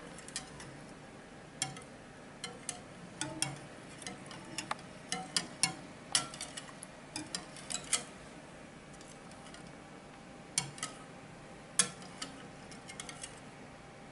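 Wire whisk clicking and tapping against the side of a bowl as a liquid egg-yolk and cream mixture is whisked gently, in irregular light ticks with a quieter stretch about two thirds of the way through.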